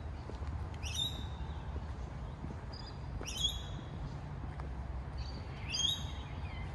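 A bird calling three times, about two and a half seconds apart: short, harsh calls made of several stacked pitches that slope as they sound. Under them runs a steady low rumble.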